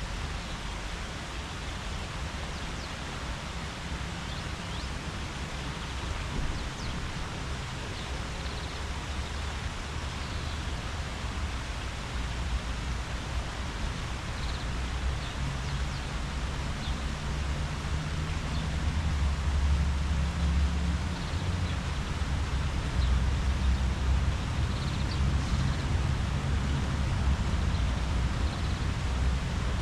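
Steady outdoor rustle of leaves stirring in the breeze, with a low rumble that grows louder in the second half and a few faint high chirps.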